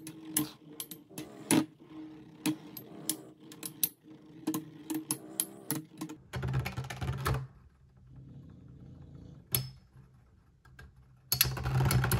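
Two Beyblade Metal Fight spinning tops, L-Drago Destructor and Rock Giraffe, spinning in a plastic stadium and clashing repeatedly: a run of sharp metallic clicks over a steady whir. Two louder rushes of noise come about six seconds in and near the end.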